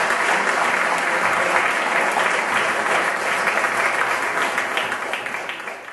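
Audience applauding steadily, the clapping thinning out and fading near the end.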